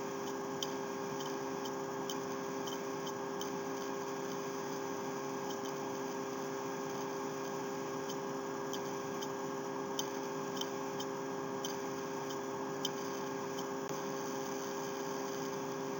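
Steady electrical hum on the recording line, with faint scattered clicks every second or so.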